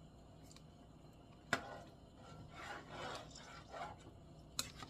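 A spoon stirring soup in a pot: a sharp knock against the pot about a second and a half in, then a few scraping strokes, and another click near the end.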